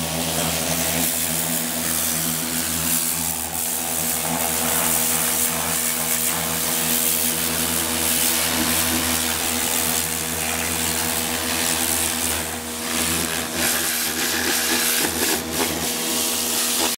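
Pressure washer running steadily, its motor and pump giving a constant hum under the hiss of the water jet spraying on a car's underbody and the concrete.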